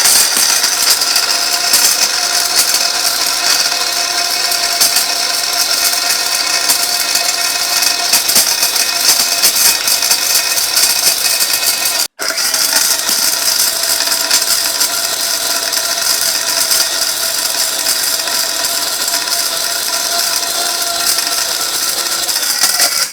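Electric dry grinder running at full speed, grinding hard dried bahera (beleric myrobalan) fruits into powder, with a steady motor whine over a gritty noise. It cuts out for an instant about twelve seconds in and stops abruptly at the end.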